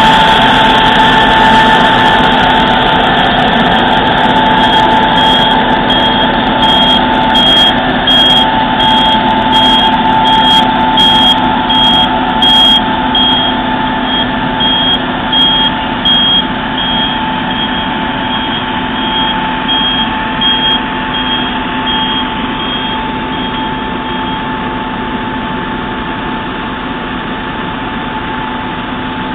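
Vacuum road-sweeper truck running with its suction fan on, a loud steady roar with a constant whine, gradually fading as it moves away. A vehicle's warning beeper sounds a long string of short high beeps from about five seconds in until about three quarters of the way through.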